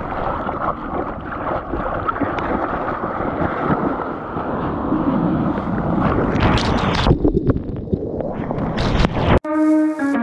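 Rushing seawater and wind noise on an action camera's microphone at water level as a bodyboarder paddles and rides a breaking wave, with two sharp splashes in the last few seconds. Near the end it cuts abruptly to guitar music.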